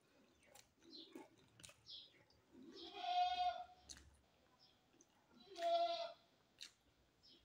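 Two drawn-out animal calls, about three seconds in and again about five and a half seconds in, each under a second long. Soft scattered clicks of eating between them.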